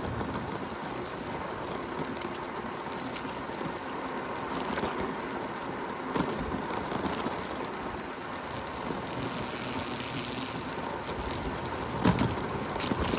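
Wind buffeting the microphone over the steady running noise of a Segway electric scooter being ridden on a road, with a faint steady whine; a brief louder bump about twelve seconds in.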